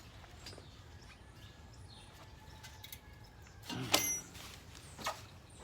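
A few light knocks and one louder metallic clank about four seconds in, as the car's wheel and tools are handled during brake work.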